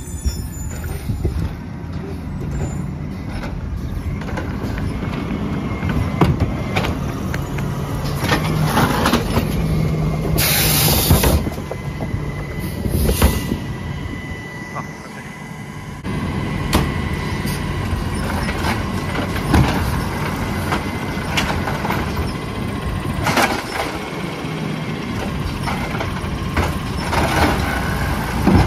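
Peterbilt 320 automated side-loader garbage truck running at the curb. A loud air-brake hiss comes about ten seconds in, with a shorter one soon after. Knocks and bangs are scattered through as the side arm picks up and empties the carts.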